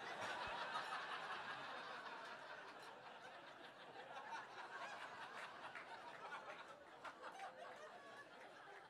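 Audience laughing at a stand-up punchline: the laughter starts at once and slowly dies away.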